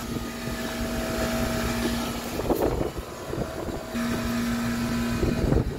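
Outdoor air-conditioner condenser unit running with a steady hum that drops out briefly midway, with wind rumbling on the microphone.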